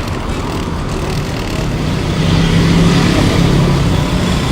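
A motor vehicle's engine running close by: a low steady hum that grows louder about two seconds in, over a steady background of noise.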